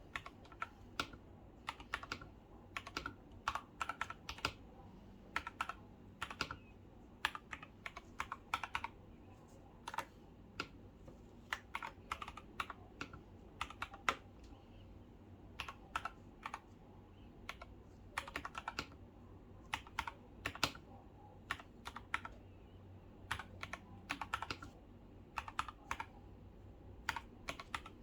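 Keychron K4 mechanical keyboard with brown tactile switches and Cherry-profile keycaps being typed on: irregular key clacks, singly and in quick runs, at an unhurried typing pace.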